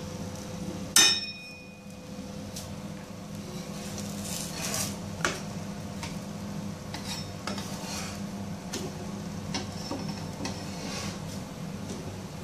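Kitchen utensil sounds at a flat griddle cooking pathiris: a sharp metallic clink with a short ring about a second in, then scattered light taps and scrapes of a hand and a metal spatula on the griddle, over a steady low hum.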